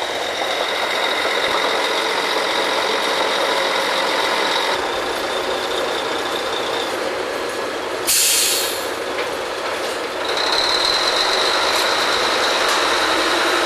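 Drilling rig machinery running steadily with a high whine, and a short, loud hiss of released air a little past eight seconds in.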